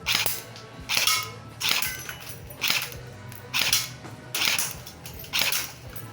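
CYMA CM030 electric airsoft pistol firing single shots, seven in all, a little under a second apart, each a short motor-driven snap.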